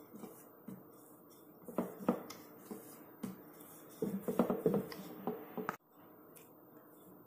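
Wooden rolling pin rolling out stiff dough on a round marble rolling board: faint, irregular clattering and knocking as the pin is pushed back and forth.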